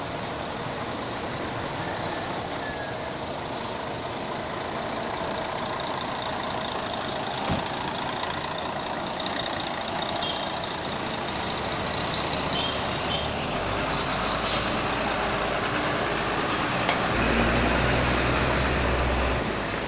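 Heavy-vehicle road noise: a large engine rumbling amid passing traffic, the low rumble swelling over the last several seconds, with a short hiss about two-thirds of the way in.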